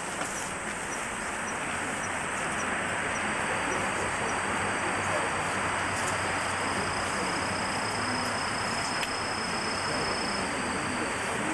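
Steady hiss of an old analogue videotape recording with faint hall room tone, and a thin high whine through the middle; no bow release or arrow strike.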